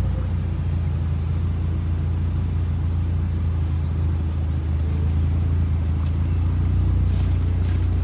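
Motor vehicle engine running steadily with a low drone, slightly louder about seven seconds in.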